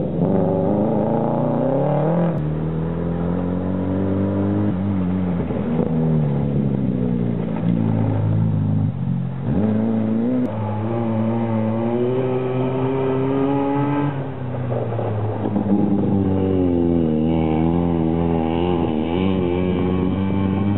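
Rally car engine revving hard as the car accelerates away, its pitch climbing and then dropping at each of several gear changes. Near the end the engine note wavers up and down.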